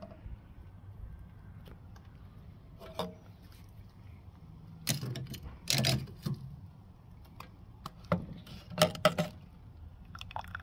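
Stainless steel tongs clinking and knocking against a metal saucepan and the smoker's grill in several short, scattered bursts as chicken is lifted and dipped in sauce.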